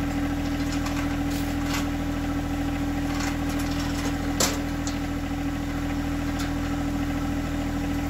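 Small compact tractor's engine running at a steady speed, holding the heavy sawmill head up on its front loader. A short sharp click sounds about halfway through.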